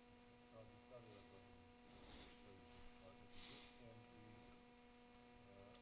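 Near silence: a faint steady hum.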